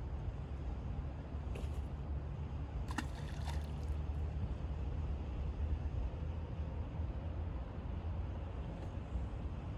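Water lapping and sloshing over a steady low rumble, with a couple of small plops into the water about one and a half and three seconds in.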